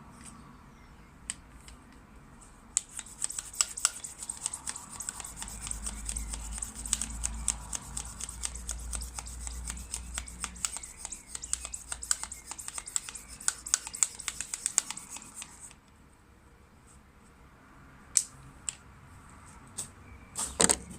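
Bicycle pump inflating a new inner tube: quick, scratchy pump strokes with air hissing, starting about three seconds in and stopping about sixteen seconds in, followed by a few separate clicks near the end.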